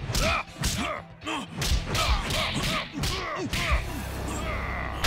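Fight sound effects for punches and kicks landing in a rapid flurry, a dozen or more hits with swishes over about three and a half seconds. After that a low steady rumble.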